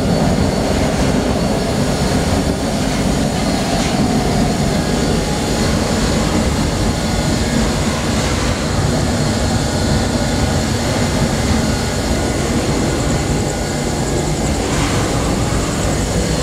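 Biomass pellet burner under test, firing a long open flame from its burner tube: a steady, loud rushing noise of flame and forced air that holds constant throughout.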